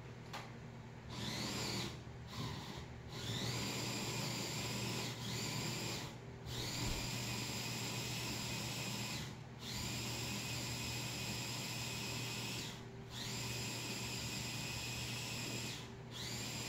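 A small high-speed electric motor whirring in repeated runs of about three seconds. Each run spins up with a rising whine, and there are short breaks between them.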